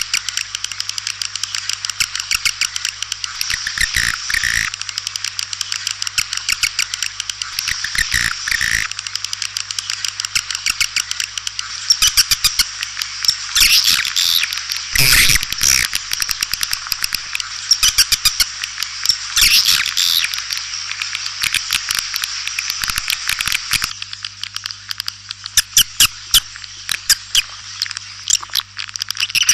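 White-nest swiftlets twittering in a dense chorus of rapid clicking chirps that swells and thins in waves. This is a swiftlet call sound (suara panggil), a lure recording played to draw swiftlets into a nesting house. A faint steady low hum runs underneath.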